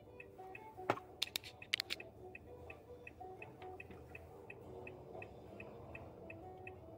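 Soft background music: a simple melody over a light ticking beat, about three ticks a second. About a second in, a quick run of sharp clicks and knocks stands out over it.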